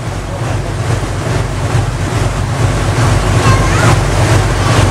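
Tour boat's engine running steadily under way, a low even hum, with wind on the microphone and water rushing past the hull.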